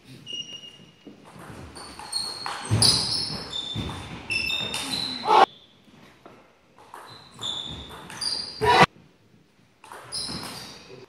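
Table tennis rally: the ball clicking off the bats and the table in quick succession, each hit giving a short, high ping, with the hall's echo. Some voices come in between the hits.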